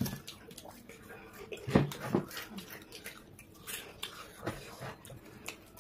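Close-up eating sounds: fingers scraping food from a bowl, chewing and mouth smacks, with scattered small clicks and two louder short noises about two seconds in.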